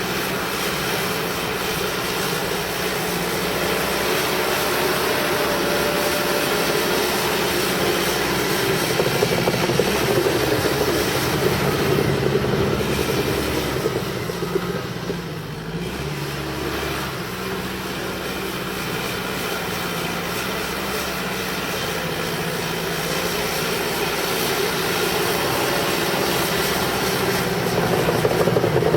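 Cat D5K bulldozer's diesel engine running hard while dozing mud. The engine sound eases off briefly about halfway through, then builds again near the end.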